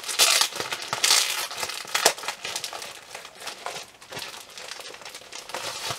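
A magazine's plastic wrapping being torn open and crinkled by hand, a run of irregular crackling rustles that are loudest in the first two seconds and then grow softer.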